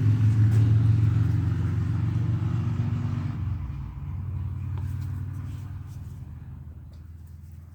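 Logan lathe running steadily with a low hum, then dropping off about three and a half seconds in and fading as it winds down.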